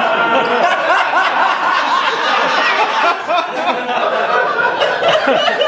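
A live audience laughing, many voices together in a loud, sustained wave of laughter.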